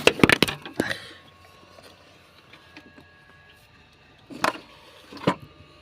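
Sharp metallic clicks and knocks from hand tools working the water pump bolts on an engine: a quick cluster of clicks in the first second, then two single clicks near the end.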